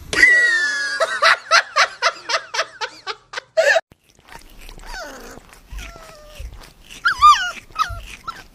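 High-pitched dog cries: a quick run of short yelping cries for the first few seconds, then, after a brief break, wavering whines and squeaks from puppies.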